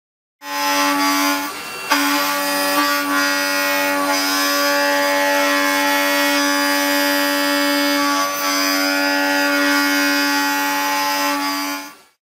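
Square 6-04 indexable square-shoulder end mill contour roughing Ck 45 steel on a CNC mill: a steady, high singing tone with many overtones as the cutter runs in the cut. It dips briefly about a second and a half in, with a sharp click just after, and stops shortly before the end.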